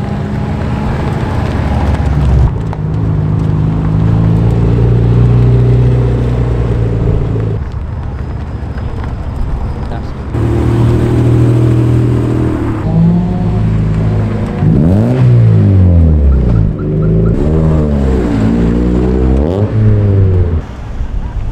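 Cars' engines running as they drive slowly away in turn, followed in the second half by an engine revved several times, its pitch rising and falling with each blip.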